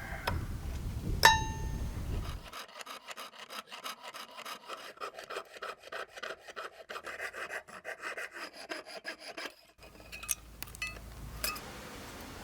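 A single ringing metal clink about a second in, then several seconds of rapid, even rasping strokes of a hand tool working a small metal lure blank.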